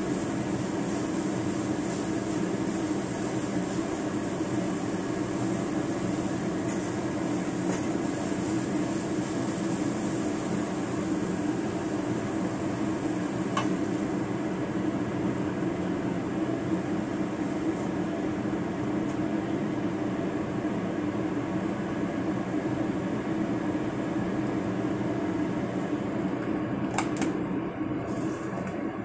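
Steady mechanical whirring hum of a kitchen fan, with a few faint clicks of a wooden spatula against the wok, one about 13 seconds in and some near the end.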